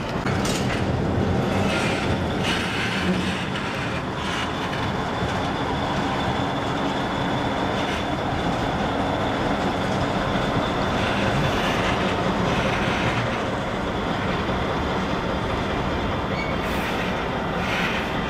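Small diesel shunting locomotive running steadily as it hauls a rake of freight wagons through a rail yard, with rail clatter and a few brief wheel squeals.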